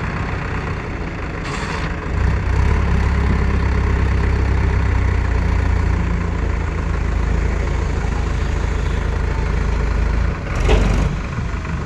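Heavy diesel engine running steadily under work, its low rumble growing louder about two seconds in, with a brief louder burst of noise near the end.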